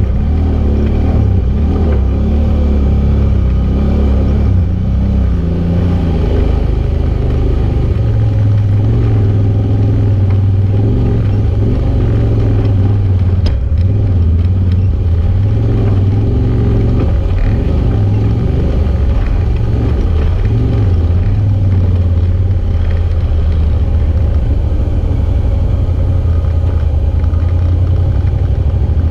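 Off-road side-by-side UTV engine running steadily while driving a rough dirt trail, its low drone shifting up and down in pitch with the throttle.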